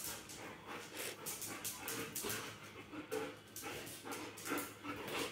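Two golden retrievers play-fighting, with short, irregular bursts of dog vocal noise and scuffling.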